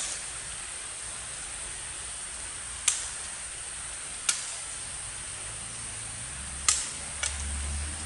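Forest ambience: a steady high-pitched insect drone, broken by four sharp, short clicks about three, four and seven seconds in, the last two close together.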